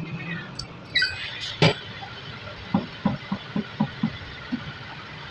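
Metal lathe with a plastic PPR pipe fitting in its chuck: two sharp metallic clinks, the second the loudest, then a run of about seven knocks, roughly three a second, as the chuck begins turning.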